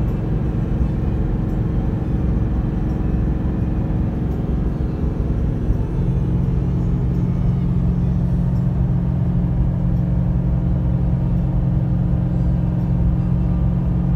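Toyota Tundra's V8 running steadily under heavy load at about 3000 rpm, heard from inside the cab while towing a 9,000 lb fifth-wheel trailer up a steep grade, with constant road rumble. About six seconds in, a steadier, deeper engine drone sets in and holds.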